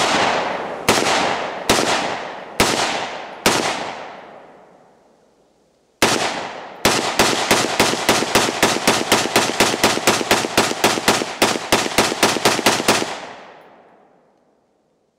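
Bushmaster AR-15 rifle firing. A shot comes at the very start, then four more about one a second. After a pause of a couple of seconds there is a single shot, then a fast string of about twenty shots at roughly three a second. Each shot has a long echoing tail, and the last one dies away about two seconds after the string ends.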